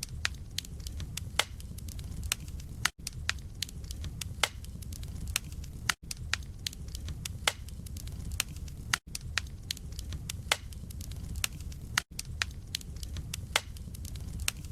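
Wood fire crackling, with frequent sharp pops and snaps over a steady low rumble of the flames. The sound cuts out for an instant about every three seconds.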